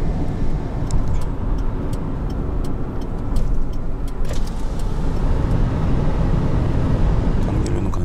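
Car driving at speed, heard inside the cabin: steady road and engine rumble, with a few faint scattered ticks.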